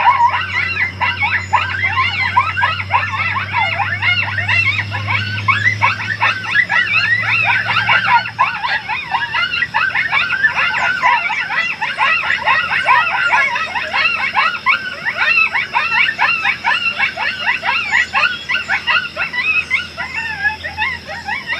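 A chorus of coyotes yipping and howling, many voices overlapping in fast, wavering, rising-and-falling calls. A low steady hum sits under it and stops about eight seconds in.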